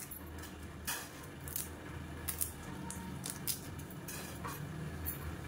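Fresh betel leaves being torn by hand and dropped into a stainless steel saucepan of water: an irregular scatter of short crisp tearing and rustling snaps, over a low steady hum.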